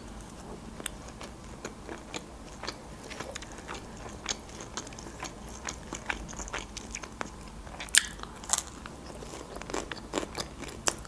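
Close-miked biting and chewing of a mini pizza: small irregular mouth clicks and soft crunches, with two sharper crunches about eight seconds in.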